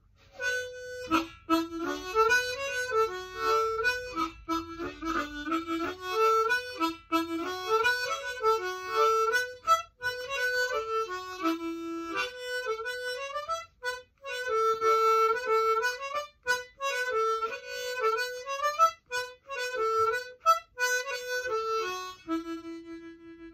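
Custom low D diatonic harmonica in Paddy Richter tuning played solo: a fast run of sliding notes and chords, ending on one long held note.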